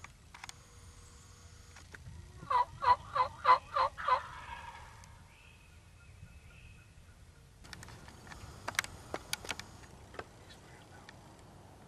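Turkey yelping: a loud run of six evenly spaced yelps, about three a second. A few seconds later comes a short patter of light clicks.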